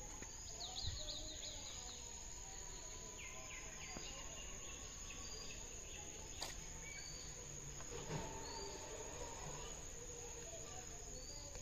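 Outdoor rural ambience: a steady high-pitched insect drone of crickets, with scattered bird chirps and calls, a quick run of them about a second in. A couple of soft knocks stand out, about a second in and about eight seconds in.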